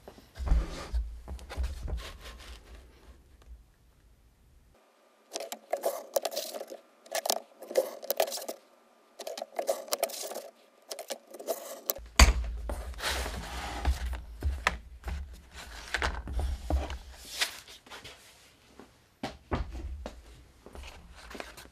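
Mat cutter sliding along its metal guide rail, its blade scraping through mat board, with irregular clicks, rubs and knocks as the board is handled.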